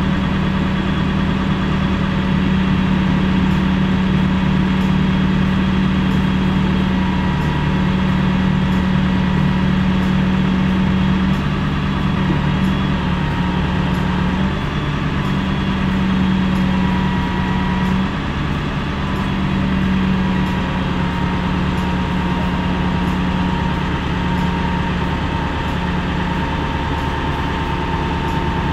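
Engine powering a truck-mounted hydraulic crane, running steadily with a strong low hum and a faint whine above it, the note wavering slightly a few times while the crane hoists the rear of a car by its trunk latch.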